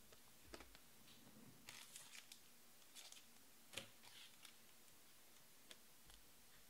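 Near silence broken by faint, scattered clicks and short rustles of Panini Prizm trading cards being handled and set down, the sharpest click a little before the middle.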